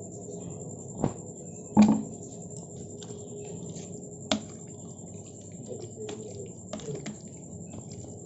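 A few sharp knocks of a mixer-grinder jar against a ceramic plate as thick green marinade paste is scraped out onto raw chicken, the loudest about two seconds in, followed by soft wet sounds and small ticks of hands working the paste into the chicken pieces.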